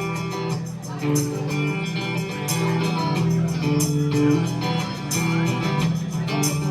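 A rock band playing an instrumental guitar passage: held electric guitar chords over a steady bass line and drums, with a cymbal crash every second or so.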